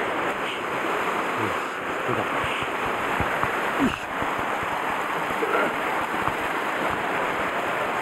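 Steady rush of a mountain stream tumbling over boulders in small cascades.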